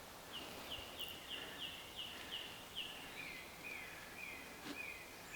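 A small songbird singing: a run of about eight quick, high, downslurred notes, then a slightly lower run of about five, fairly faint over soft woodland background hiss.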